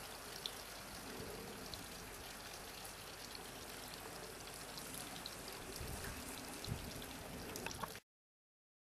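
Steady outdoor background hiss with faint scattered ticks. It cuts off abruptly about eight seconds in.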